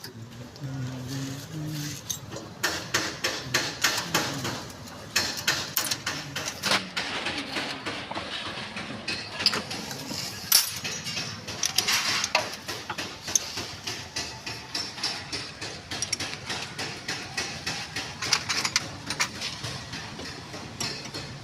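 Metal hand tools clicking and knocking in quick, irregular strokes, with a few sharper louder knocks.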